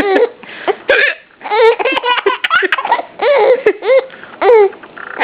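A baby giggling and laughing in repeated high-pitched bursts, his first full-on giggle, with sharp hiccups between the bursts.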